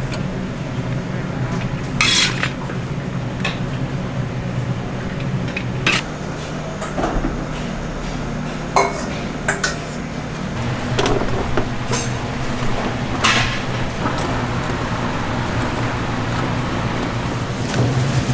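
Metal kitchen utensils clinking and clanking against pans and bowls at irregular intervals, over a steady low hum.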